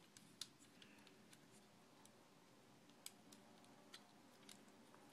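Faint clicks of a plastic Transformers figure's joints and parts as it is turned and pushed into place by hand, with a sharper click just under half a second in and another about three seconds in.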